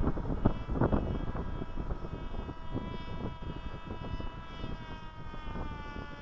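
Electric motor and propeller of a foam RC model plane whining as it flies by, the pitch dropping slightly near the end as it passes and moves away. Gusty wind buffets the microphone underneath, most strongly in the first second.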